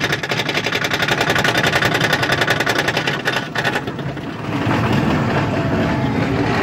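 Mine-train roller coaster cresting its chain lift hill: a rapid, even clatter of about a dozen clicks a second that stops about three and a half seconds in. The train then rolls away downhill, its wheels rumbling steadily on the steel track.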